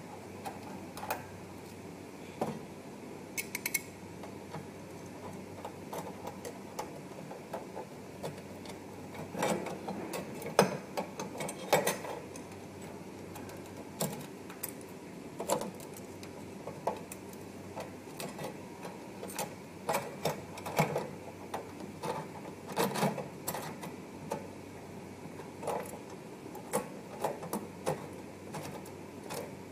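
Irregular small metallic clicks and taps as screws are turned by hand and a steel adapter plate is fitted onto a stainless-steel machine cabinet, over a steady background hum.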